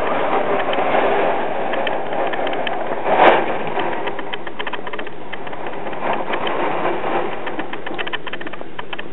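Hurricane rain and wind driving against an apartment window, a steady rushing noise with a dense fast patter of drops on the glass, and a brief louder burst about three seconds in.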